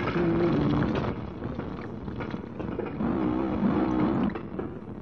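Harsh noise music played from a cassette: a dense, distorted wash of rumble and hiss with warbling, wobbling tones in the low-mid range. It is louder for the first second and again from about three seconds in.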